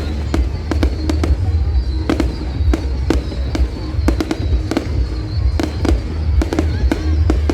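Fireworks display going off: a fast, irregular string of bangs and crackles over a heavy low rumble, with music playing underneath.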